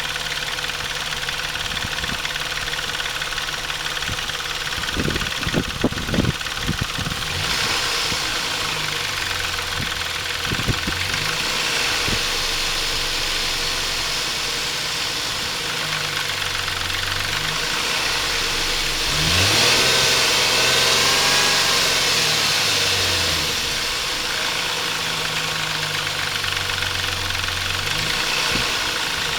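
Chrysler 2.7 V6 engine idling, with a few sharp knocks about five seconds in and a brief rev that rises and settles back to idle about two-thirds of the way through. It makes the noise that turned out to be the timing chain tensioner, not released correctly when the water pump was replaced.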